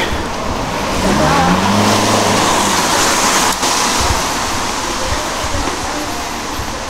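A car driving past on the street: a swell of tyre and engine noise with a low engine note that rises and then falls as it passes, easing off after a few seconds.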